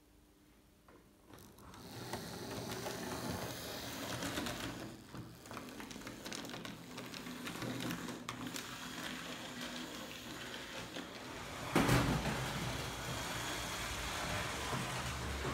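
Model trains running on a layout: a small electric motor whirring and wheels clattering over the track, starting about a second and a half in, with one louder knock about twelve seconds in.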